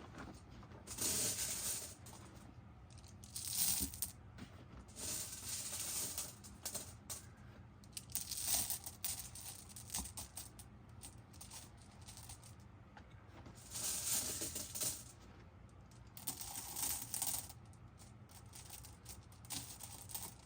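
Flat glass marbles clinking and rattling against each other as they are poured into the bottom of a fabric sack, in several bursts of clicks with pauses between.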